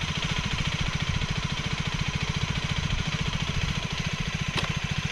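FB Mondial Flat Track 125's single-cylinder, four-stroke engine idling steadily, with an even, rapid pulse.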